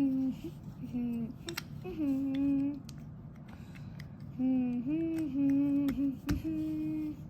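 A voice humming a tune in held, wordless notes, broken by a few sharp clicks of puzzle pieces.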